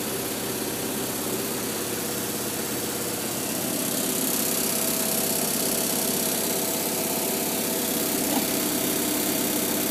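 Washing machine running with a steady loud whirring hum, shaking violently as it goes like crazy; the noise grows a little louder about three and a half seconds in.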